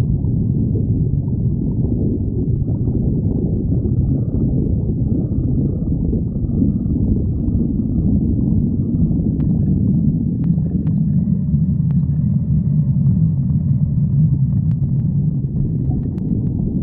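A person's stomach growling, a continuous low rumbling and gurgling that holds steady, with a few faint clicks in the second half.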